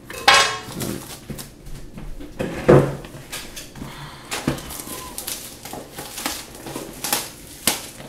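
Plastic shrink-wrap crinkling and tearing as it is pulled off a cardboard booster box, in irregular sharp crackles and rustles.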